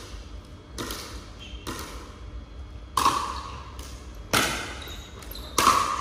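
A pickleball rally: about five sharp pops of paddles striking the plastic ball in six seconds, each with a short echo off the hall's hard walls. The last three are louder than the first two.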